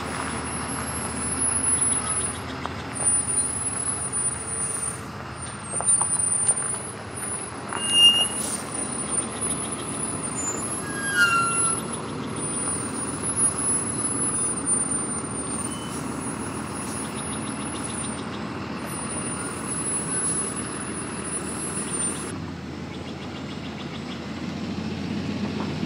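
Diesel engine of a Winnebago Journey diesel-pusher motorhome running as the rig moves off slowly, with a thin high wavering whine over it that stops near the end.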